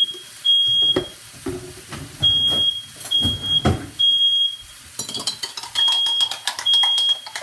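Smoke alarm sounding its high, steady beep in groups of three with a pause between groups, set off while the chicken was being seared. A few low knocks come in the first seconds, and a crackling sizzle from the frying pan starts about five seconds in.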